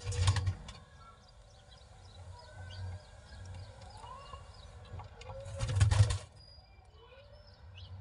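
Faint pigeon calls and short high bird chirps at a nest of newly hatched squabs, broken twice by short loud bursts of noise, once right at the start and again about six seconds in.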